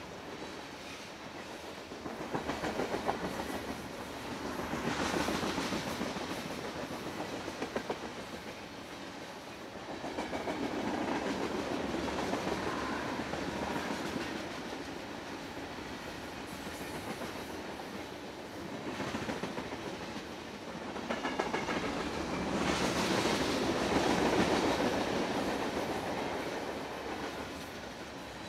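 Long freight train of tank cars and covered hoppers rolling past at speed, steel wheels clacking over the rail joints in a steady patter. The noise swells and eases several times as cars go by.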